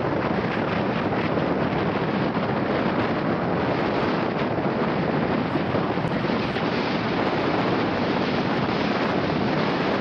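Strong wind buffeting the microphone in a steady, loud rush, with rough surf breaking on the beach underneath.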